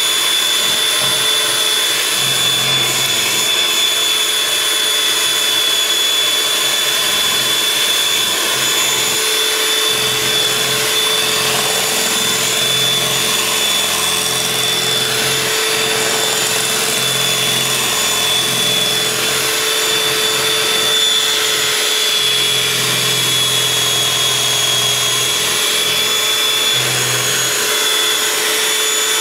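Electric hand mixer running steadily with a high-pitched whine, its beaters whipping a still-liquid mix of sugar, canola oil and eggs in a glass bowl while it is creamed toward a butter-like consistency.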